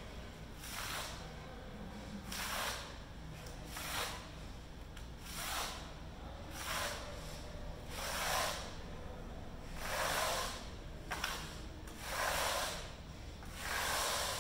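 Steel notched trowel scraping wet adhesive across an embossed aluminum diamond plate panel, in about ten regular sweeping strokes roughly a second and a half apart.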